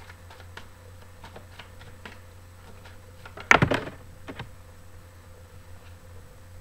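Tarot cards being shuffled by hand: a run of light flicks and clicks as the cards slide against each other, with one louder, brief rustling burst about three and a half seconds in.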